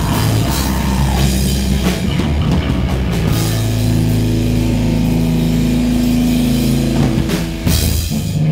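Crust punk band playing live and loud: distorted electric guitar chords over a drum kit with crashing cymbals, with a screamed vocal into the microphone. A chord is held for a few seconds in the middle, and the sound thins briefly near the end.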